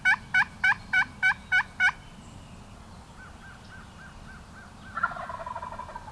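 Wild turkey yelping: a fast run of loud yelps, about four a second, that stops about two seconds in, then a fainter series of yelps and a brief rattling turkey call about five seconds in.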